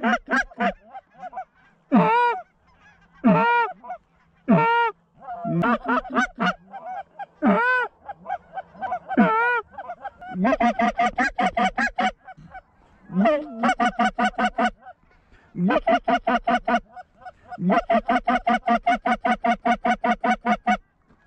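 Goose calls blown close by, single drawn-out honks a second or two apart, then from about ten seconds in, long runs of rapid clucks, about ten a second, as hunters call hard to circling geese.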